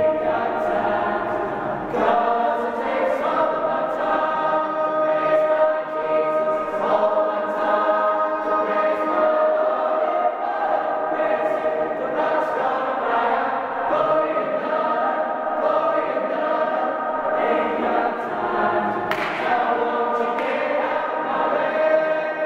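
Mixed choir of men and women singing a gospel hymn, full chords held for a second or two before moving on.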